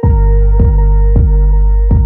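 Background music: a deep bass line and a steady beat come in at the start over held sustained tones, with a beat roughly every half second or so.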